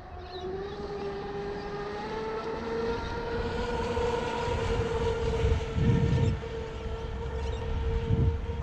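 Mystic 138 RC speed boat running flat out, its electric motor giving a steady high whine. The pitch climbs a little over the first few seconds as the boat gathers speed, then holds.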